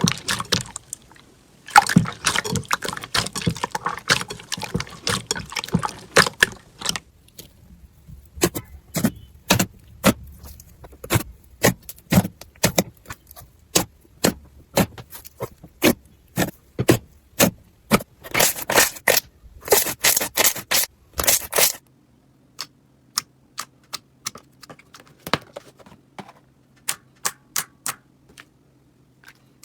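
Slime being pressed and worked by hand, giving stretches of dense crackling and strings of sharp clicks and pops. Near the end the clicks thin out to single pops over a low steady hum.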